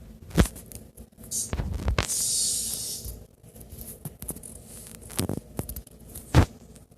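A breathy hiss lasting about a second, starting about two seconds in, among several dull thumps, the loudest near the end.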